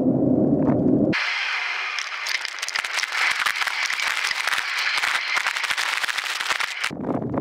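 Riding noise from a mountain bike on rough ground: a dense crackling and rattling that starts abruptly about a second in and stops abruptly near the end, with low wind rumble on the microphone before and after.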